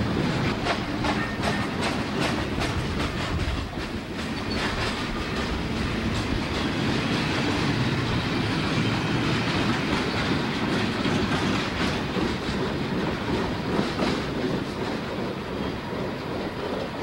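Freight train cars rolling past at close range: steel wheels clicking over rail joints over a steady rumble. The clicks come in quick runs, most of them in the first few seconds.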